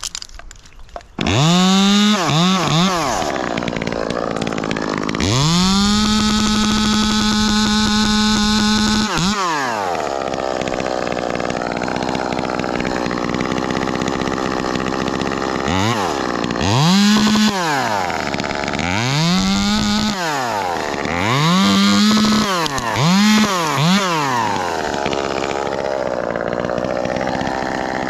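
Ported Echo 2511T top-handle chainsaw starting about a second in and giving a couple of quick revs. It is then held at full throttle for about four seconds and drops back to idle. Later it is blipped up to high revs five or six times in quick succession, idling between the blips.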